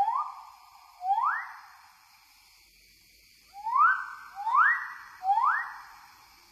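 A bird calling in short, hoarse notes that sweep sharply upward and then hold for about half a second. There are two calls close together near the start and, after a pause, three more in quick succession.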